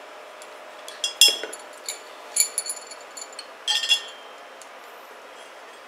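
Metal valve stem installation tool clinking against a small tractor wheel rim as it is fitted to a new valve stem. Several sharp clinks that ring briefly come between about one and four seconds in.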